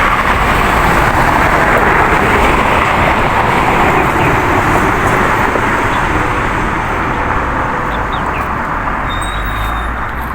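Road traffic passing: a steady rush of tyre and engine noise that slowly eases off toward the end, with a few faint, brief bird chirps near the end.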